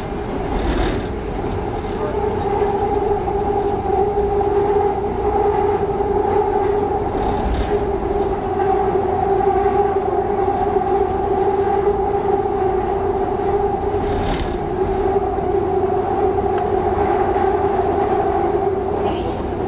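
Seoul Subway Line 2 train running at a steady speed, heard from inside the car: a low rumble with a held two-note hum and a few faint clicks.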